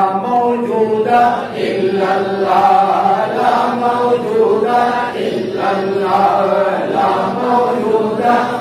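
A man chanting devotional Islamic verses in a melodic, drawn-out line, as in a milad recitation.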